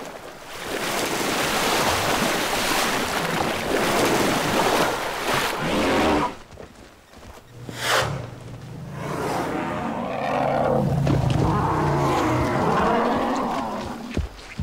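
African elephant bulls fighting at a waterhole. First comes heavy sloshing and churning of water, then a single sharp knock about eight seconds in. After that an elephant gives a long, low bellowing roar lasting several seconds.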